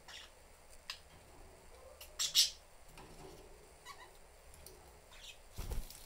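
Budgerigars chirping in short, scattered calls, the loudest about two seconds in. Near the end comes a brief low thump as a budgie lands on the branch perch.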